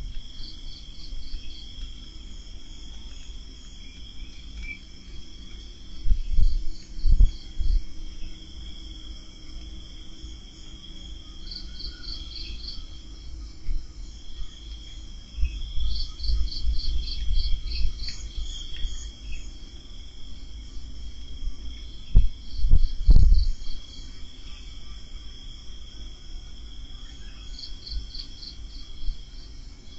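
Crickets chirping: a steady high trill with repeated groups of faster pulsed chirps over it. Low rumbles come about six seconds in and again around twenty-two seconds in, louder than the insects.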